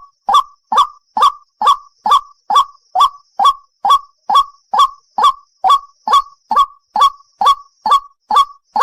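White-breasted waterhen (ruak-ruak) calling: one short, harsh note repeated very evenly, a little over twice a second.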